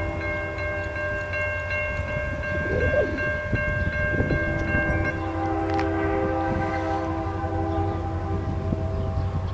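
Approaching Norfolk Southern freight locomotive's multi-chime air horn held as one long chord of several notes, its notes shifting about halfway through, over a low steady rumble of the train.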